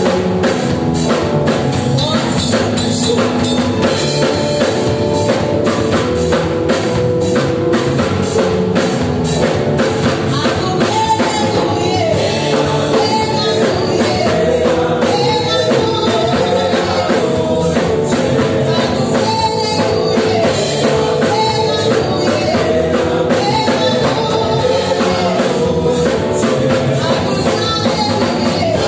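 Live gospel praise and worship music: several singers singing into microphones, backed by a drum kit keeping a steady beat.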